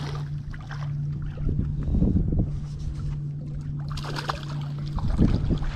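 A boat's motor hums steadily while a hooked bass is fought, with two louder splashes of water about two and five seconds in.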